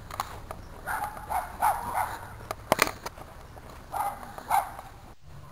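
Footsteps running over grass and leaf litter, with several short vocal bursts and a few sharp clicks, the loudest click nearly three seconds in.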